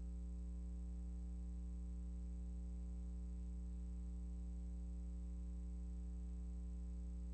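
Steady low electrical hum with a faint high whine, unchanging throughout, with no other sound.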